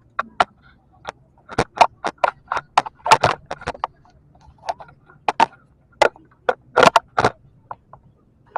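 A run of irregular sharp clicks and knocks, close and fairly loud, coming unevenly a few times a second.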